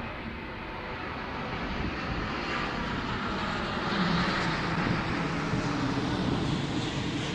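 Airplane engine droning as the plane flies over, mixed with a broad rushing noise, getting louder about halfway through.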